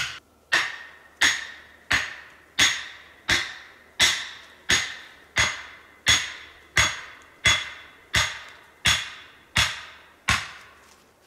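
Steady hammering on the top of an upright wooden stake, driving it into the ground: about sixteen sharp knocks, roughly one every 0.7 s, each with a brief ringing tail, stopping about a second before the end.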